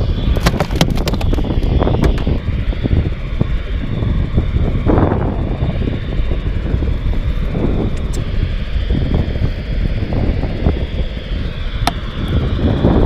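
Steady low rumble of wind buffeting the microphone, with a quick run of sharp clicks in the first second or so and a couple of single clicks later.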